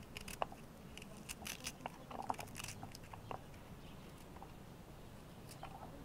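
A small kitchen knife slicing through a raw red onion held in the hand: a run of short crisp crunching cuts, quick and dense for the first three seconds, then fewer and farther apart.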